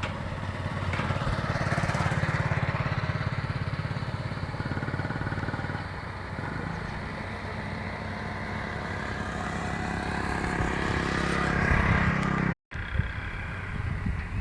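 A small motor vehicle's engine running steadily, growing louder a couple of seconds in and again near the end. A brief cut-out in the sound comes shortly before the end.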